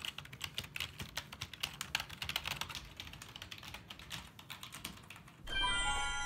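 Fast typing on a Microsoft ergonomic computer keyboard: a dense, irregular run of key clicks. About five and a half seconds in, the typing stops and louder music with bell-like chiming tones comes in.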